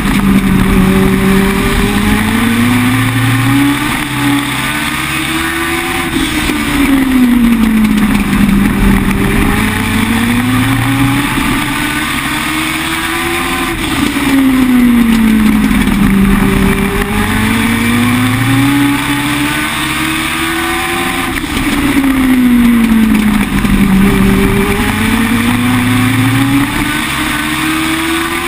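A Legend car's Yamaha 1200 cc four-cylinder motorcycle engine running at racing speed, heard from inside the cockpit. Its pitch and loudness climb on each straightaway and drop through each turn, repeating about every seven to eight seconds as the car laps the short oval.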